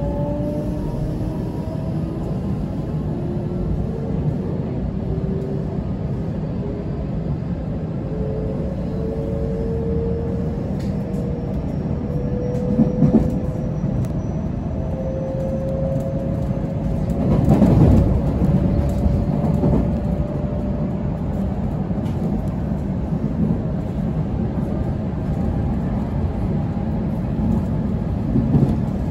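Cabin noise of a JR Special Rapid Service electric train gathering speed: a steady low rumble of wheels on rail, with the traction motors' whine rising slowly in pitch through the first half. Two short louder clatters come near the middle.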